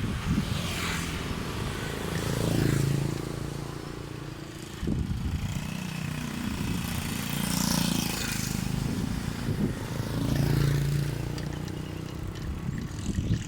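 Wind buffeting the phone's microphone while cycling, with the hum of small engines, typically motorbikes, swelling and fading as vehicles pass about three times.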